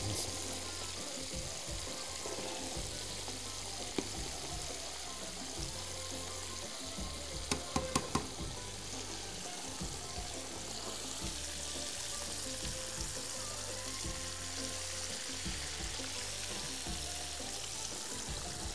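Safi fish (rabbitfish) frying in hot oil in a pan, a steady sizzle. A few sharp clinks about seven to eight seconds in.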